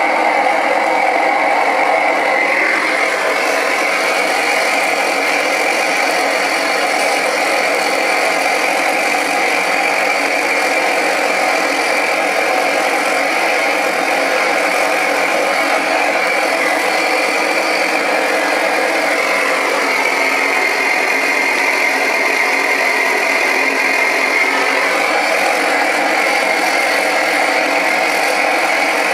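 Hand-held gas burner running steadily with a loud rushing flame, firing into a small homemade melting furnace to heat a crucible of aluminium. Its sound shifts slightly a few seconds in and again about two-thirds of the way through.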